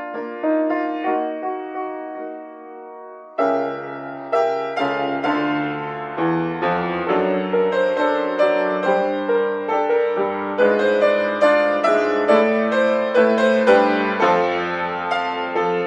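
Solo acoustic piano playing. A softer passage in the middle and upper range is cut off a little over three seconds in by a loud chord with bass notes, and the playing grows fuller with repeated chords after that.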